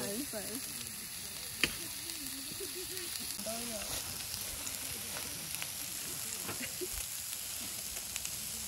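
Meat skewers sizzling and crackling as they cook over heat, with one sharp click about a second and a half in.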